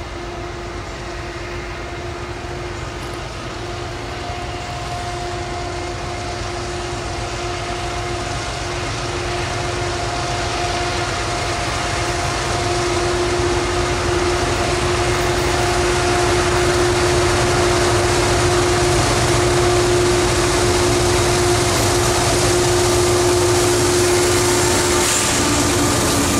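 Two CSX diesel locomotives hauling a loaded ethanol tank train, growing steadily louder as they approach and come alongside near the end. A steady engine hum sits over rising rail and wheel noise.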